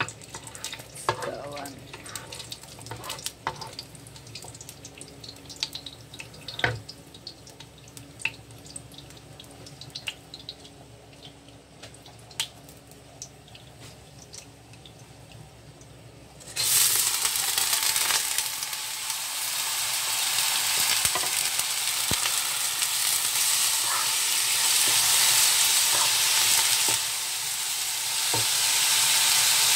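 A wooden spatula stirs whole spices in a little oil in a wok, making scattered light taps and clicks. About halfway through, a loud sizzling starts abruptly as rice goes into the hot oil. The sizzling keeps up while the rice is stirred and fried.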